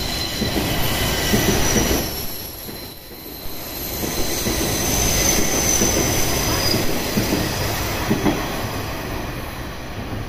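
Hanshin Railway 8000-series electric trains running past, a steady rumble of wheels on rail with high, thin squealing tones above it. The sound dips briefly about two to three seconds in, then builds again.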